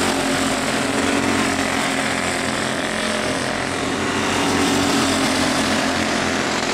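Small single-cylinder engines of quarter midget race cars buzzing steadily as the cars lap the oval together.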